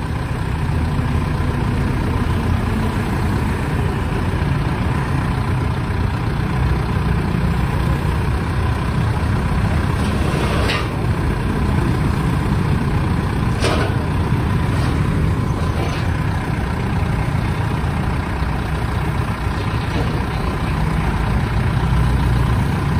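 A vehicle engine running steadily and loudly, with most of its sound low and deep. A few short sharp knocks come through about 11 and 14 seconds in.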